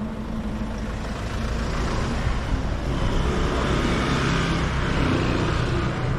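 A motor vehicle passing close by on a city street: a low engine rumble with tyre noise that swells about halfway through and eases near the end.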